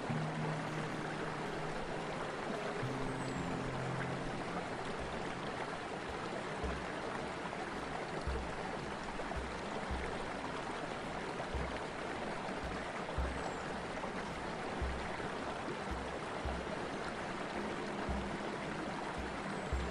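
Storm-swollen river rushing and churning through rapids in a steady roar of whitewater. Celtic music plays over it, with a soft low beat about every three-quarters of a second from about six seconds in.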